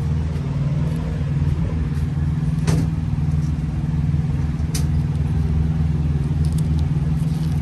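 A semi truck's diesel engine idling steadily, with two faint clicks partway through.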